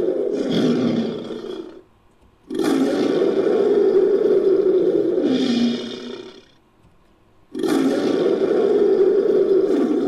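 Fictional manticore roar sound effect, mixed from lion and monster roar recordings: the end of one roar, then two long roars of about four seconds each, separated by short silences. Each roar slides down in pitch and fades at its end.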